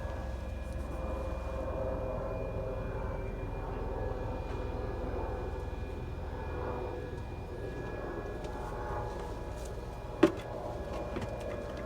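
Steady low drone of a distant engine, holding an even pitch, with one sharp click or knock about ten seconds in.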